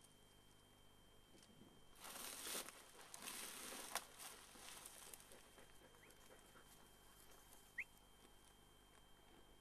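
Faint rustling and swishing of dry grass for a couple of seconds, starting about two seconds in, with one sharp click in the middle. Otherwise near silence, with one brief high chirp near the end.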